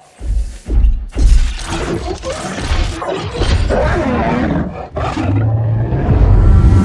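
Film sound of the giant ape Kong: three heavy crashing impacts, then a long rough, wavering roar over dramatic score, ending on a held low note.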